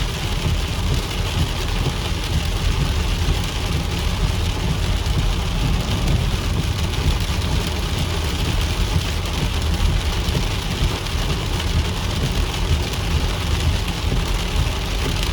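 Heavy rain falling steadily, with a strong low rumble underneath.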